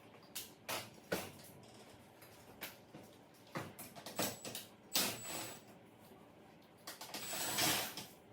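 Scattered clicks, light knocks and handling noises of tools and parts being worked during disassembly of an electric range's glass cooktop, with a longer scrape near the end.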